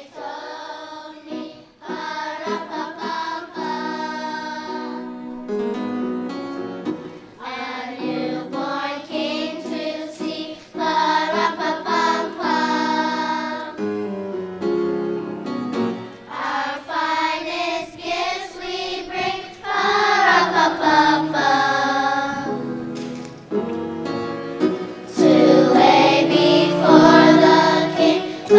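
A children's choir singing in sustained phrases, growing fuller and louder in the last few seconds.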